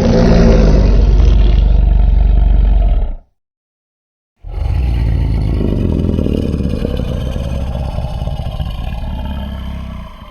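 Two designed Godzilla-style monster roar sound effects: a loud, deep roar of about three and a half seconds that cuts off, then after about a second of silence a second, longer roar of about six seconds that slowly fades.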